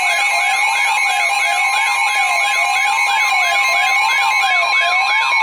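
Loud electronic siren sweeping up and down, quick yelps over a slower wail, laid over a steady high alert tone like a weather radio's warning alarm.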